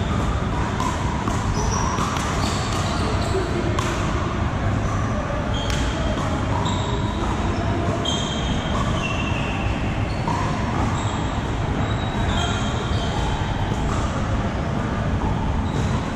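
Pickleball paddles striking the hard plastic ball: sharp pops at irregular intervals from this and neighbouring courts in a large arena hall, over a steady low rumble.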